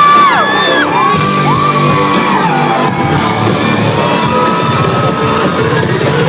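Concert audience in a large hall screaming and cheering over loud pop music, with long, high screams rising and falling one after another.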